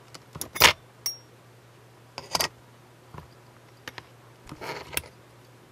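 A scattered run of light clicks and small metallic clinks from hand tools and fingers working on a scale ship model. The loudest comes about half a second in, and one just after it has a short high ring.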